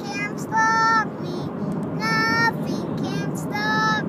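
A young boy's high voice singing or vocalising a string of short held notes, each about half a second long, over the steady low rumble of a car cabin.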